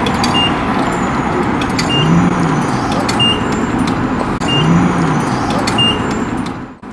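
Chevelle's LS3 V8 running in a car wash bay, its pitch rising and falling briefly twice, with a short high beep repeating about every second and a half.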